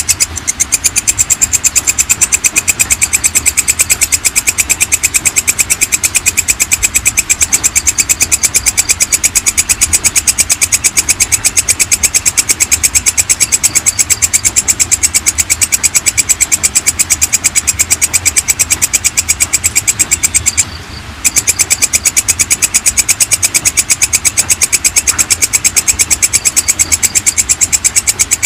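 Walang kecek (belalang kecek) katydid calling: a fast, even train of high-pitched chirps repeating many times a second. The chirping breaks off once for about half a second, roughly two-thirds of the way through.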